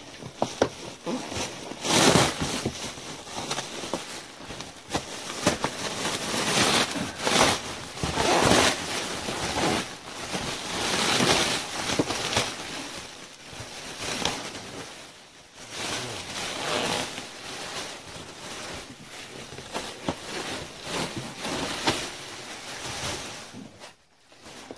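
Plastic-bagged expanding-foam packaging rustling and crinkling in irregular bursts as it is pulled out of a cardboard box.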